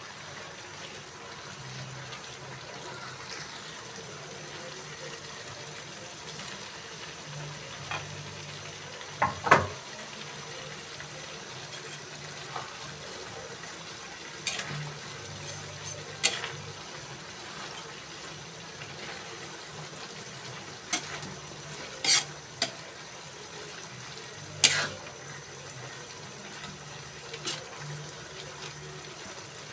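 A pot of cassava leaves cooking in coconut milk, with a steady sizzle and bubble. Every few seconds a spoon or ladle clicks and scrapes against the pot as it is stirred.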